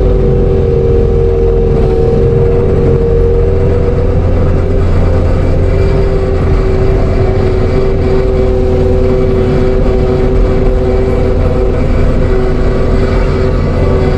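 ASV RT-120F compact track loader running a TMC Cancela forestry mulcher: a loud, steady diesel drone with a constant hydraulic whine held at one pitch, the machine working at full throttle.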